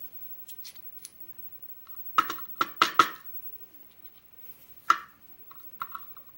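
Sharp metallic clicks and clinks of small lock pins, springs and tools being handled while a lock is disassembled. There is a quick cluster of clicks about two to three seconds in and a single louder click near five seconds.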